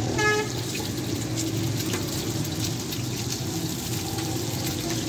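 Chapli kebabs and eggs sizzling in a wide iron pan of hot oil: a steady frying crackle with many fine pops, over a low hum. A brief pitched tone sounds right at the start.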